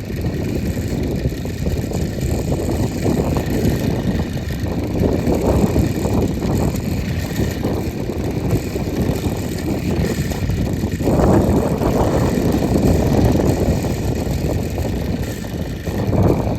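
Gusty wind buffeting the microphone, with strong surges about five seconds in, from about eleven to fourteen seconds, and again near the end. Under it a homemade fan spins with a faint steady whir.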